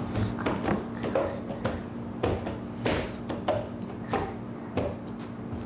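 A baby's hand slapping a plastic high-chair tray: about ten irregular knocks, roughly one every half second, over a steady low hum.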